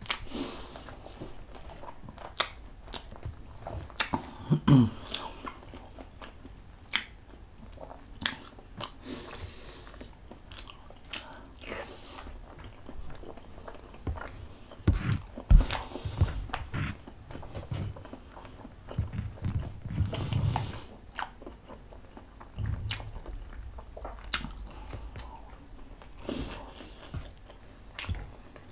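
Close-miked mouth sounds of a person eating: biting and chewing food, with irregular wet clicks and smacks and a few dull knocks around the middle.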